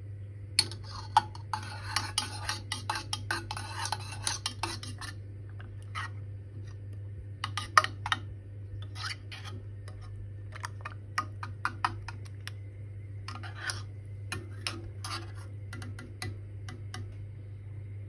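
Water poured into a small steel Turkish coffee pot (cezve) of ground coffee, then a teaspoon stirring it, clinking sharply and irregularly against the pot's metal sides.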